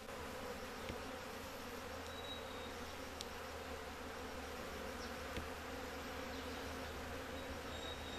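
A honeybee colony in an opened hollow-log hive buzzing steadily, with a few faint clicks here and there.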